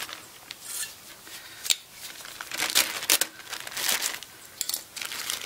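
Clear plastic bag crinkling in irregular bursts as a new paper oil-filter cartridge is worked out of its wrapping.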